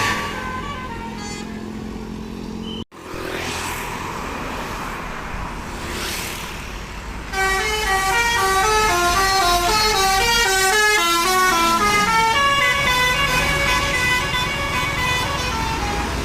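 Telolet Basuri multi-tone bus horn playing melodies of quick stepped notes. A short run early on is cut off abruptly near three seconds. After a few seconds of road and engine noise, a loud, rapid run of short notes starts about seven seconds in and continues.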